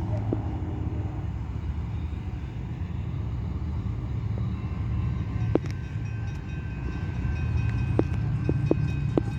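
Steady low rumble of an approaching freight train led by a GE AC4400CW diesel locomotive, with a few sharp clicks, three of them close together near the end.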